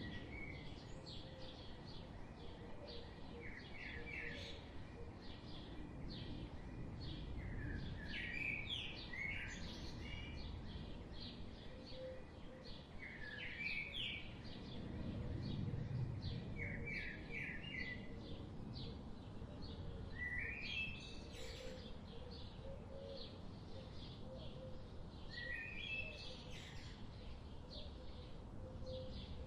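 Several wild birds chirping and singing in a forest. Short phrases of quick rising notes come every few seconds over a steady scatter of high chirps, with a low, steady rumble of background noise underneath.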